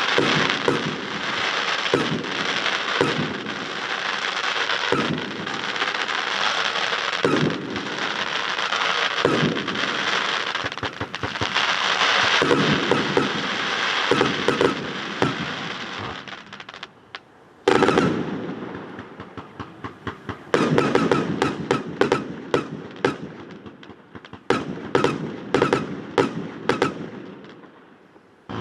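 Fireworks going off in a display: about sixteen seconds of dense crackling with repeated bangs, then a short lull, a single big bang, and rapid strings of sharp reports that ease off near the end. The bangs come back oddly, echoing off a metal hangar.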